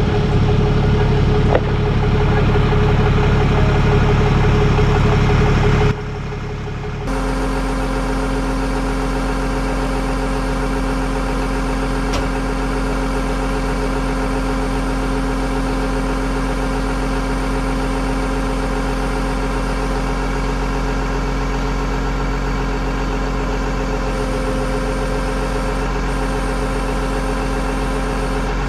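Truck engine running for about six seconds, then dropping away briefly and settling into a steady idle with a constant hum.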